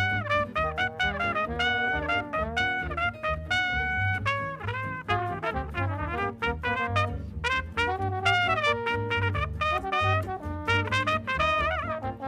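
Small traditional jazz band playing a blues: trumpet and trombone carry the melody over an archtop guitar and double bass keeping a steady beat. Near the end the horn notes waver with a wide vibrato.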